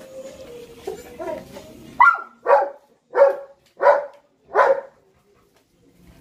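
Belgian Malinois barking five times in quick succession, about one bark every two-thirds of a second, starting about two seconds in.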